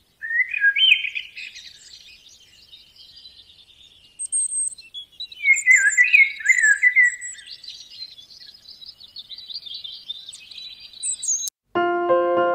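Songbirds chirping and trilling, loudest briefly about half a second in and again around the middle. The birdsong cuts off suddenly near the end and piano music begins.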